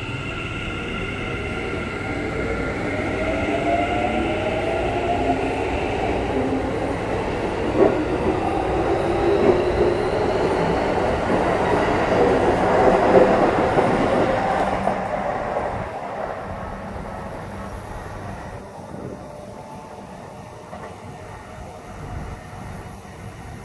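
Keikyu 1000 series electric train pulling out of the station, its Mitsubishi IGBT-VVVF inverter whining in rising tones as it accelerates over growing wheel and rail noise. The sound grows louder, then fades away after about fifteen seconds as the train leaves.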